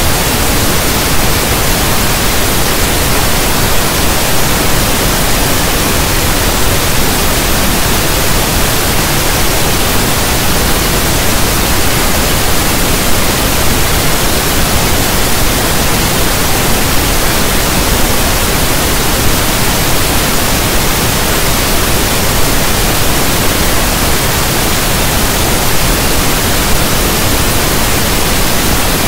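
Steady, loud pink noise: an even static hiss like a radio not tuned to a station.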